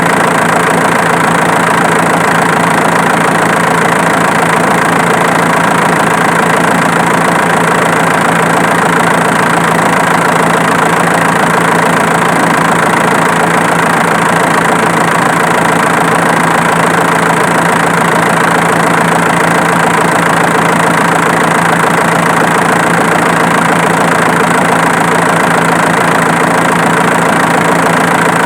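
Diesel engine idling steadily, a constant mechanical hum with no change in speed.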